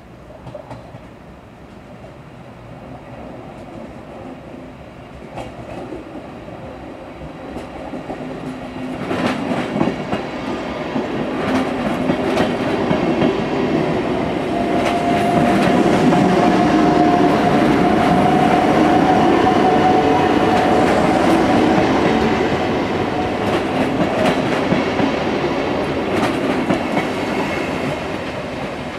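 NSB BM 69 electric multiple unit approaching and passing close by: a rumble that builds to its loudest about halfway through, with clicks of wheels over rail joints. A steady high whine runs through the loudest part for several seconds.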